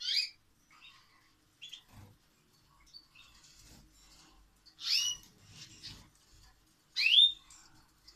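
Canaries giving short, quick rising chirps. The loudest come right at the start and about five and seven seconds in, with fainter chirps in between.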